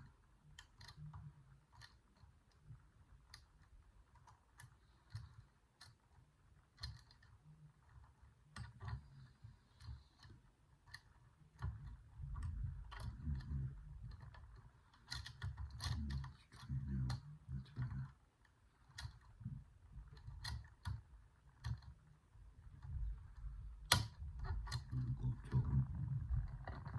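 Lever padlock being picked: scattered small metallic clicks and scrapes of a pick and tension tool moving the levers, over low handling rumble. A sharper, louder click comes near the end as the lock opens.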